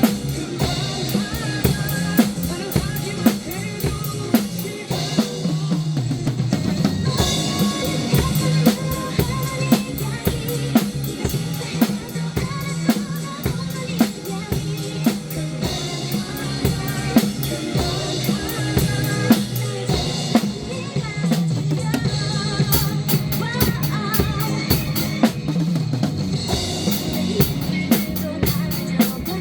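Drum kit played in a steady beat of kick drum, snare and cymbal strikes, with fills where the cymbal pattern thins and returns.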